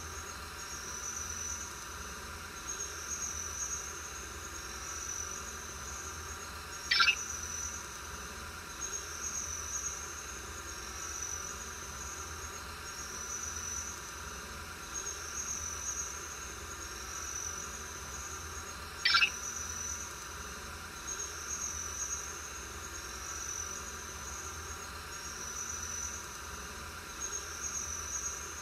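Night-time insect ambience like chirping crickets: high trills repeating about once a second, with two brief, sharp, high-pitched calls standing out, one about a quarter of the way in and one about two-thirds through.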